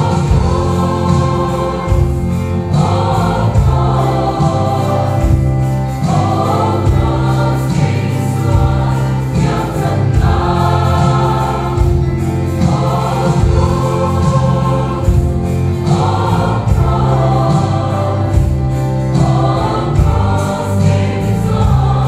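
Large mixed choir of men and women singing a gospel hymn, in phrases of about three seconds each.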